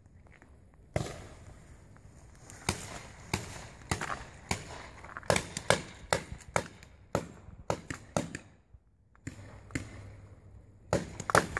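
Paintball markers firing across the field: irregular sharp pops, some in quick runs, with a short lull about eight seconds in and more shots near the end.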